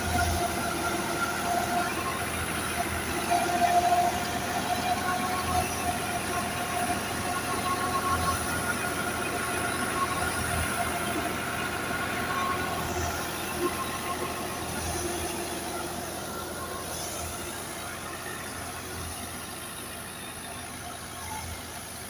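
Tractor-driven wheat thresher running steadily while threshing, the tractor engine and spinning threshing drum making a continuous mechanical drone with a steady whine. It grows fainter over the last few seconds.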